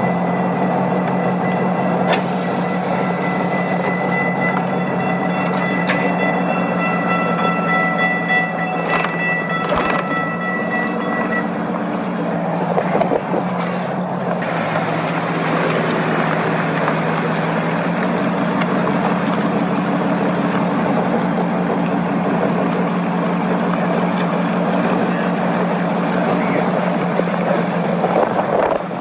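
Road and engine noise heard from inside a moving car, a steady drone with a low hum, picked up by a phone. A thin steady high tone sounds over it for the first ten or so seconds, then stops.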